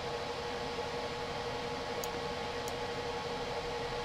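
Steady background hiss with a constant faint hum, the room and microphone noise of a voice recording, with two faint ticks a little after halfway.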